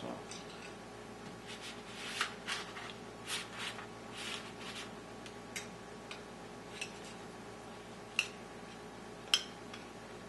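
Soft swishing strokes of a brush spreading egg wash over chapatis on a baking tray, with a few light, sharp clicks of a utensil against the ceramic egg bowl in the second half.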